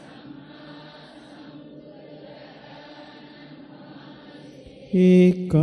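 Many voices chanting a Sinhala Buddhist devotional verse together in unison, soft and blurred, answering the leader's line. About five seconds in, a single man's amplified chanting voice comes back in, much louder.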